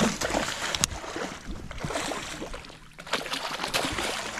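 Water sloshing against the hull of a small boat, with handling knocks and a sharp click about a second in.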